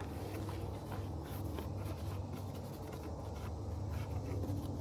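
Light scratching and rubbing with a few faint clicks, over a steady low hum.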